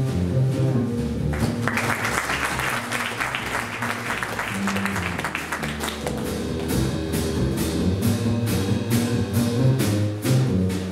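Jazz trio of grand piano, upright bass and drum kit playing, with steady cymbal strokes. Audience applause breaks in about two seconds in and dies away by about six seconds, while the band keeps playing.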